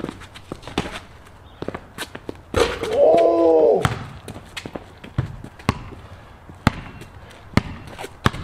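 Basketball bouncing on a concrete court in irregular sharp thuds as a player dribbles. About three seconds in comes the loudest sound, a drawn-out cry from a player lasting about a second.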